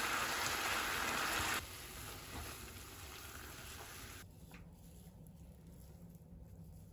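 Daikon radish steaks sizzling in a seasoning sauce in a nonstick frying pan. The sizzle drops sharply about a second and a half in, and stops about four seconds in.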